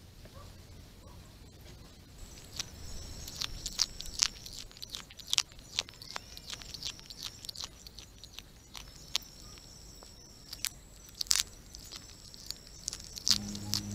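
Opossum right at the trail camera, making sharp crunching clicks close to the microphone, as of chewing. These begin about two seconds in and come irregularly, with a thin high tone coming and going behind them.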